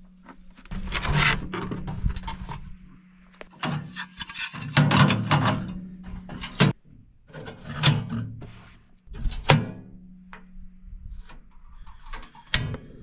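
Clatter, clicks and knocks of a portable butane camp stove and its plastic case being handled and set up in a steel tractor loader bucket. A steady low hum runs underneath at times.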